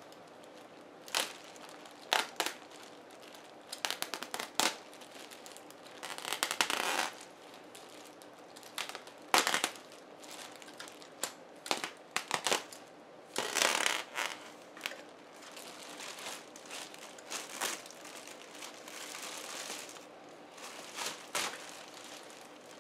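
Clear plastic bag crinkling and rustling as it is cut open and pulled off a telescope, in irregular sharp crackles with a few longer rustling stretches.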